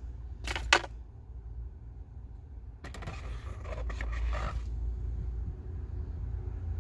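Cabin air filter being slid out of its plastic housing behind the glovebox: a couple of sharp plastic clicks, then about two seconds of scraping and rustling as the pleated filter drags out.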